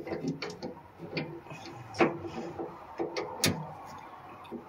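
Scattered clicks and light metallic knocks of hands and a small wrench working at an inline fuel pump's mounting clamp. Two sharper clicks come about two seconds in and again a second and a half later.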